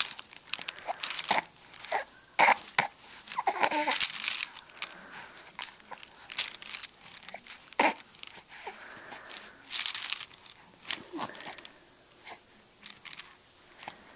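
A baby mouthing and chewing plastic teething rings and link toys: irregular clicks and crinkly handling noises of the plastic against the mouth and hands, with a few short baby vocal sounds, a couple of seconds in and again about eleven seconds in.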